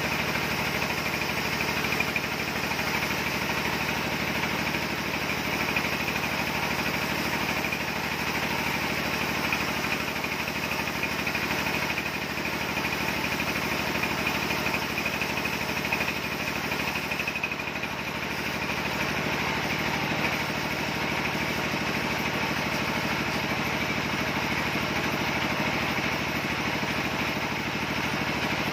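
Log band sawmill running steadily with a steady motor hum, as a log of mixed red timber is fed through it on the rail carriage; the sound dips briefly about two-thirds of the way in.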